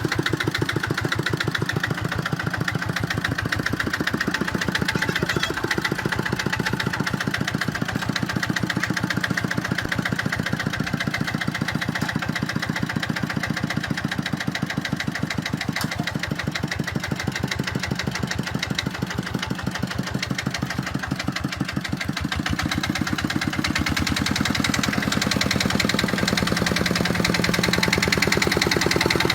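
Kubota tractor engine running steadily with an even, rapid chugging, a little louder in the last few seconds.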